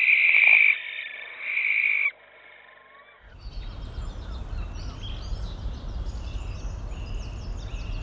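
Barn owl giving two harsh, rasping screeches, each under a second long, in the first two seconds. After a short pause, a steady low rumble with faint high chirps comes in.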